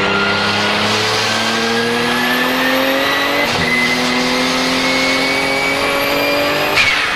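Porsche 997 GT2 RSR's twin-turbo 3.9-litre flat-six, heard onboard, accelerating hard with its pitch rising, dropping at an upshift about three and a half seconds in, then rising again through the next gear over a high turbo whistle. A short sharp burst near the end marks the next break in power.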